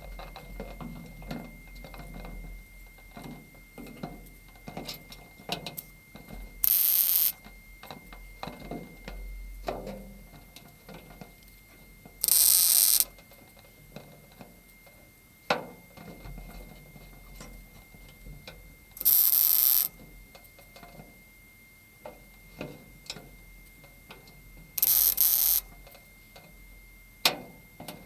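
A welder laying four short tack welds on a classic Mini's replacement steel panel, each a burst of hiss under a second long, about six seconds apart. Small clicks and knocks of handling sound between the tacks.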